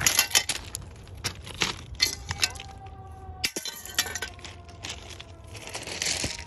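Footsteps crunching on railway track ballast, with loose stones clicking and clinking underfoot in an irregular run of sharp crunches. A faint steady ringing tone sounds through the middle.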